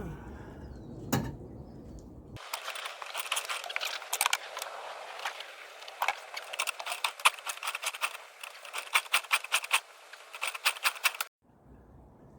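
Outboard motor being cranked without catching: a rapid, irregular clatter of sharp clicks and rattles, with no engine note because the motor is not firing on an empty gas tank. The clatter cuts in suddenly a couple of seconds in and stops just as suddenly near the end.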